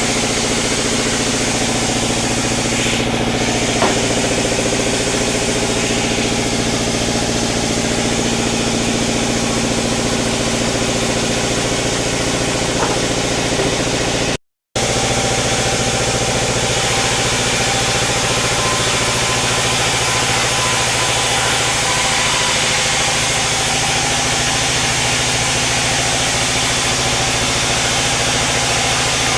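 Sawmill machinery running steadily with an even engine-like hum; the sound drops out for a moment about halfway through, then carries on unchanged.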